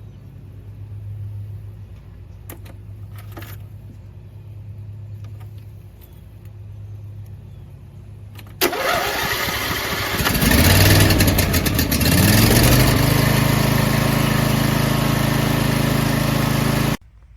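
A steady low hum, then about two-thirds of the way in a car engine cranks and catches. It flares in pitch, settles into a steady idle and then cuts off abruptly.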